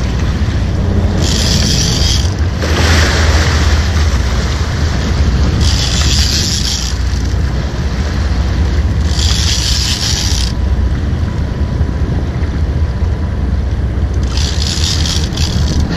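Steady low rumble of the boat and wind buffeting the microphone, with four short bursts of high hiss, each about a second long, spread through the stretch.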